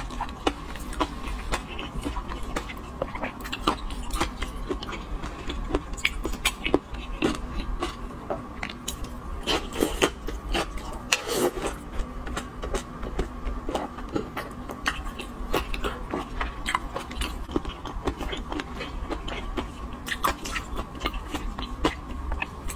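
Close-miked chewing and biting of sauced seafood, with many small irregular clicks and lip smacks throughout, over a steady low hum.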